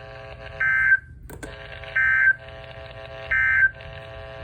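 Emergency Alert System end-of-message code from a NOAA Weather Radio broadcast: three short, buzzy bursts of SAME digital data about 1.3 seconds apart, closing the severe thunderstorm watch alert. A sharp click falls between the first and second bursts, over a low radio hum and hiss.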